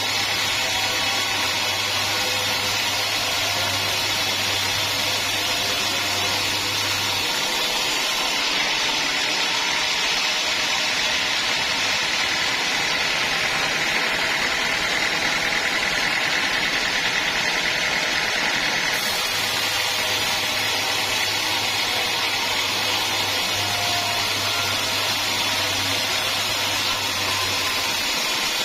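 Sawmill machinery running steadily, a continuous mechanical whir and hiss with a low hum that drops out about a quarter of the way in and comes back in the second half.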